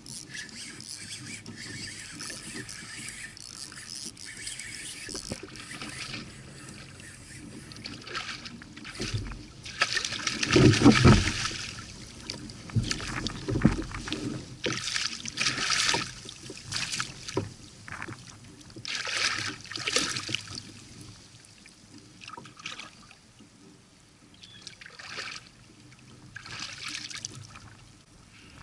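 A hooked fish thrashing at the surface beside a kayak, with several loud splashes starting about ten seconds in and coming in bursts for about ten seconds. Before and after, a fainter steady wash of water.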